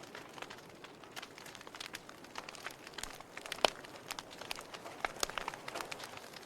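Wood fire crackling, with irregular small pops and snaps over a soft hiss of burning and one sharper snap a little past halfway.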